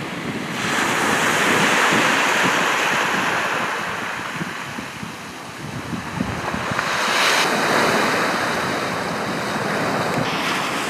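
Surf breaking on the shore with wind buffeting the microphone, the rushing noise swelling twice and easing between.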